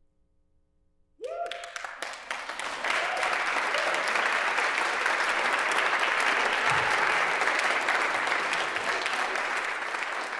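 Audience applause breaking out after about a second of near silence, opening with a short rising cheer, then building over the next two seconds into steady clapping.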